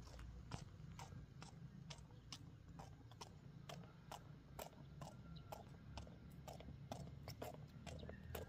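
Faint footsteps walking at a steady pace, a sharp tick with each step, about three a second.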